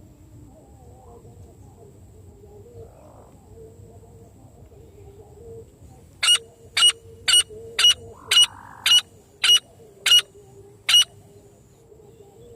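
A francolin (teetar) calling: after a few quiet seconds, a run of nine sharp, loud notes about half a second apart, the last one after a slightly longer pause.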